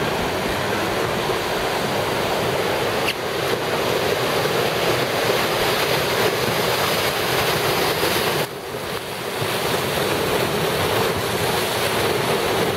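Whitewater river rapids rushing loudly and steadily from on board a boat running through them. The level drops suddenly about eight and a half seconds in, then builds again.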